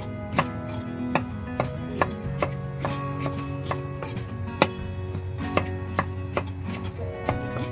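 Chef's knife chopping raw asparagus stalks on a bamboo cutting board, sharp knocks about twice a second, one louder about four and a half seconds in, over soft background music.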